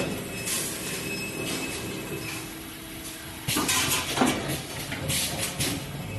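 Automatic wire ring forming and welding machine running: a steady mechanical hum with several short hissing bursts, the loudest starting about halfway through.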